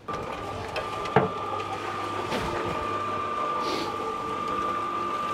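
Small electric cement mixer running, a steady motor and gear whine over a low hum, with a single knock about a second in.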